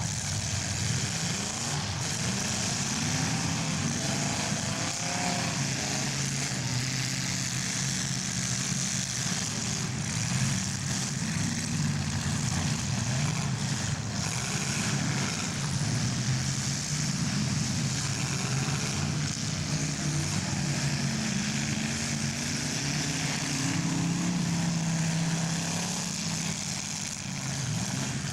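Several demolition derby cars' engines running and revving, their pitches rising and falling, under a steady wash of noise.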